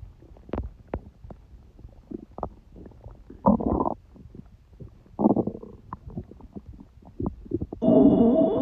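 Human stomach gurgling: scattered small pops and bubbling, with two louder gurgles around the middle. Near the end a longer, louder gurgle starts, carrying a steady whine-like tone.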